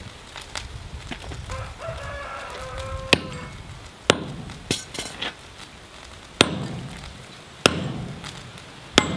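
Sledge or hammer blows striking a steel drift being driven through the square hardie hole of a striking anvil: about six sharp, ringing metal strikes at uneven intervals, starting about three seconds in. A rooster crows in the background just before the first strike.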